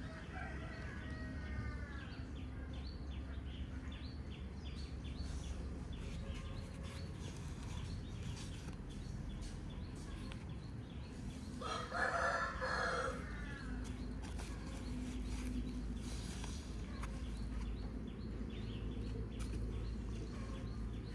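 A rooster crowing twice: a faint crow at the start and a louder one about twelve seconds in, over steady low background noise.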